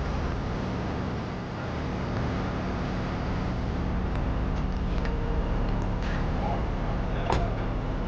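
Mercedes-Benz S-Class sedan idling at the kerb with a steady low hum, with a few light clicks and one sharp knock near the end as its rear door is shut.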